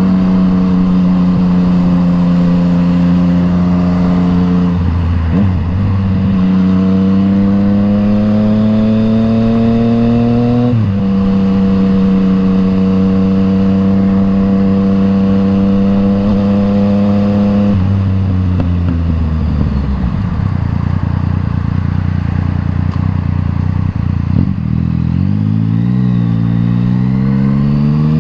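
Yamaha MT-09's three-cylinder engine through an Akrapovič exhaust under way. It holds a steady pitch, climbs through the revs in one gear, drops sharply at an upshift about eleven seconds in, and holds again. Later it falls away as the throttle is closed, runs low and rough for a few seconds, then rises as it accelerates near the end.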